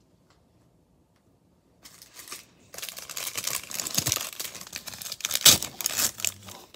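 A small crimp-sealed plastic packet being crinkled and torn open by hand, a dense crackling that starts about two seconds in and stays loud until just before the end.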